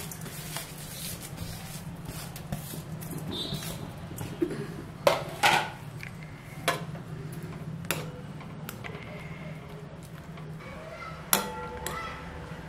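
Utensils knocking against a metal kadhai: a few sharp taps, the loudest two about five seconds in, and a ringing knock near the end. Under them runs a steady low hum.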